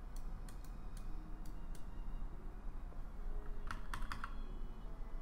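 Scattered clicks from a computer keyboard and mouse, with a quick run of louder clicks about four seconds in.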